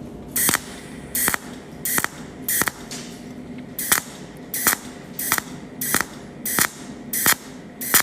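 A cold-welding machine firing pulse welds on a red-copper-to-brass tube joint: a sharp snap with each pulse, about one every two-thirds of a second, with one longer pause.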